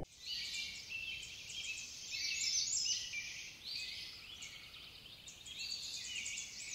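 Birdsong: many small birds chirping at once, a thick tangle of quick, high, downward-sweeping chirps. It thins out about four seconds in and picks up again near the end.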